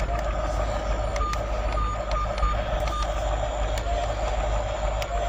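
Battery-powered toy excavator truck playing its electronic beeping sound effect: a run of short, high beeps about a second in, then a few lower beeps near the end, over a steady low hum.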